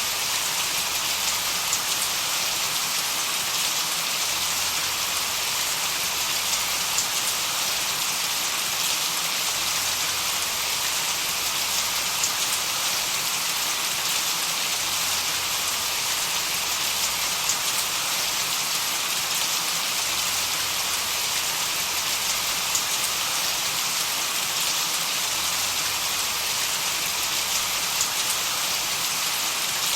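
Steady, unchanging white-noise hiss, heaviest in the upper range, with faint scattered ticks.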